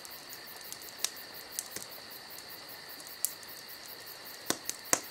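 Crickets chirping steadily, with several sharp clicks scattered through.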